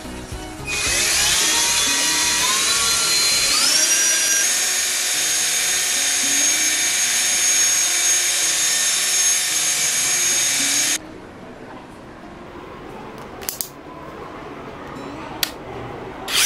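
18V cordless drill boring a twist bit into a block of wood: the motor whine starts about a second in, climbs in pitch in two steps, runs steady, then stops suddenly about two-thirds of the way through. A few light clicks follow near the end.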